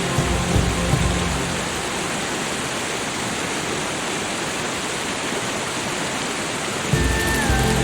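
Steady hiss of falling water, even across the whole range. Soft ambient music with low held notes sits under it at the start, fades out after about a second and a half, and comes back about seven seconds in with a higher tone that slides down a little.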